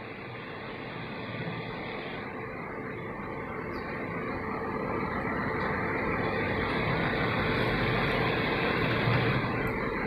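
Rasam boiling and frothing in a steel pot, a steady bubbling hiss that grows slowly louder, with a steady hum underneath.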